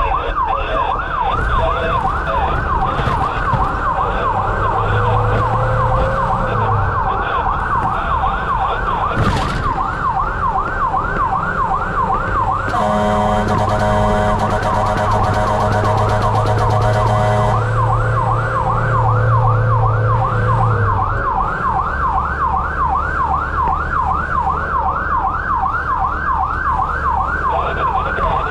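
Fire-rescue vehicle siren on a fast yelp, sweeping up and down several times a second. About halfway through, a steady horn tone sounds over it for about five seconds.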